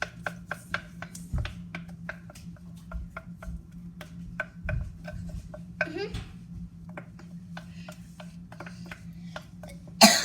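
A kitchen utensil clicking and scraping against a mixing bowl as banana bread batter is emptied into a loaf pan, in quick irregular taps several times a second.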